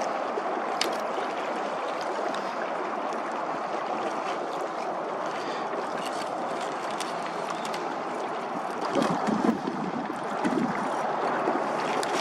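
Steady rush of river current moving past the boat, with a few faint clicks and a couple of brief louder sounds about nine and ten seconds in.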